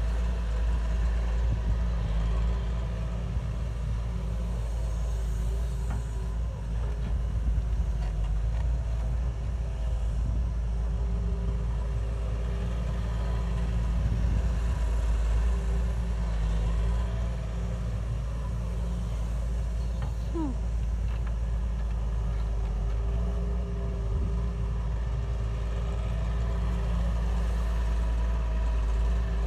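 Heavy machinery engine running steadily under constant load: a deep, even rumble with a steady hum above it.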